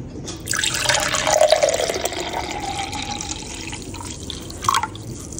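Boiled purple-corn water poured from a jug into a tall glass tumbler, a steady splashing pour that starts about half a second in, its tone rising slightly as the glass fills.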